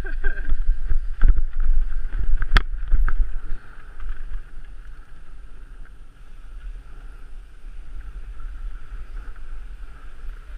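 Wind buffeting the microphone of a camera riding on a mountain bike as it descends, with sharp knocks and rattles of the bike over a rough dirt trail in the first three or so seconds. A very sharp knock comes about two and a half seconds in. After that the ride smooths out to a steadier, quieter rush as the bike rolls onto tarmac.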